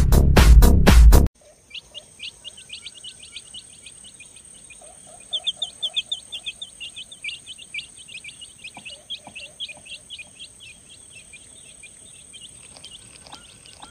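Electronic music cuts off about a second in. After that a baby chick peeps: many rapid, short, high-pitched falling chirps, busiest in the middle, over a steady high-pitched whine.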